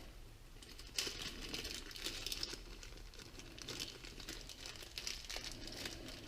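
Plastic packaging crinkling as small hardware parts are handled and taken out, with a sharp click about a second in.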